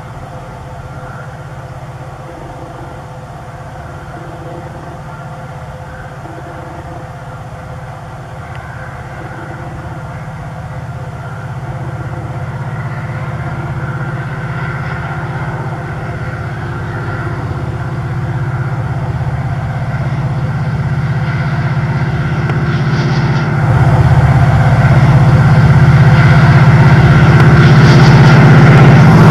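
Diesel locomotive engine droning as a passenger train approaches, growing steadily louder. It jumps louder near the end, when the locomotive is close.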